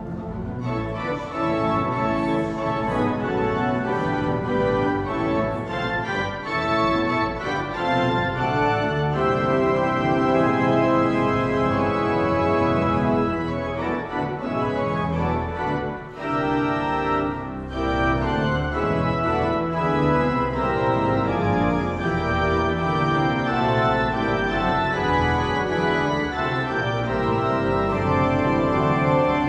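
Church organ playing music in full, held chords that change every second or so, with a brief drop in loudness about halfway through.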